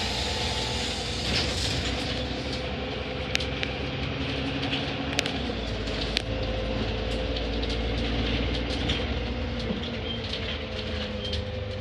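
Interior of a moving single-deck bus: the steady drone of the engine and drivetrain with a held whining tone, road rumble, and scattered sharp rattles and clicks from the fittings. The low rumble grows heavier about halfway through.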